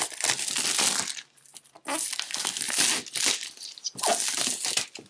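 Plastic shrink wrap crinkling and tearing as it is pulled off a cardboard box, in irregular bursts with a brief lull about a second and a half in.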